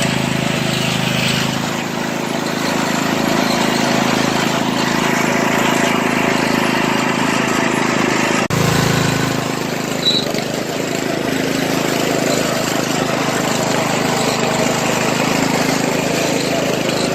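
Murray Select riding lawn mower's 13.5-horsepower engine running steadily as the mower is ridden.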